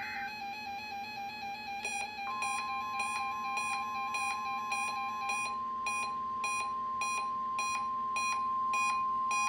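Several weather radios alarming for a required weekly test: a short data burst ends right at the start over a steady pulsing beep, then about two seconds in another radio starts beeping at about two beeps a second and a steady high tone comes in just after.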